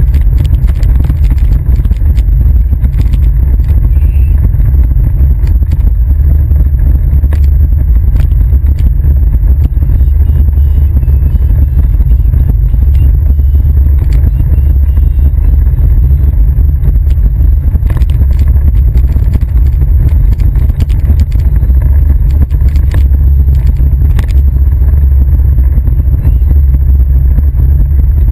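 Kids' ride-on toy car driving along pavement: a loud, steady low rumble from its hard plastic wheels on the road surface, carried straight into the camera mounted on the car's body, with scattered clicks and rattles.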